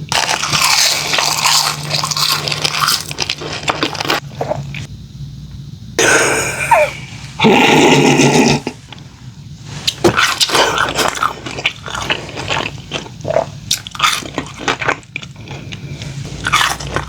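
Close-miked chewing and crunching of seasoned fried food, with wet mouth clicks throughout and two louder noisy stretches about six and eight seconds in.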